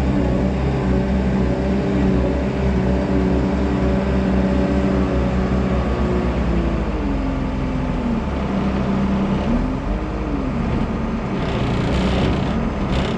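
Tractor engine running steadily under load as it drives a Penta feed mixer, with the mixer churning its load of hay. The engine note drops about seven seconds in and climbs again around ten seconds.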